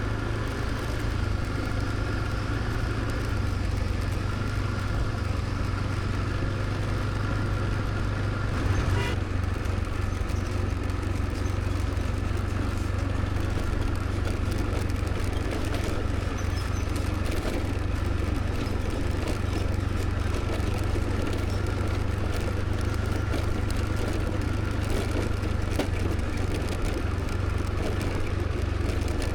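Scooter riding along, heard from the rider's seat: a steady mix of engine and road noise with a strong low rumble. A short, louder sound comes about nine seconds in.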